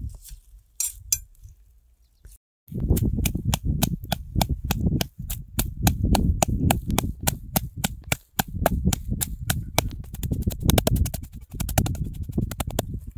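A knife chopping on a wooden cutting board in a steady run of sharp knocks, about three a second. About ten seconds in it speeds up to a rapid mincing rhythm before stopping.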